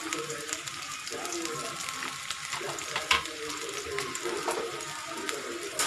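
Chopped onions and green chillies frying in hot oil in a steel kadhai: a steady sizzle with occasional sharp pops and crackles, the loudest about three seconds in.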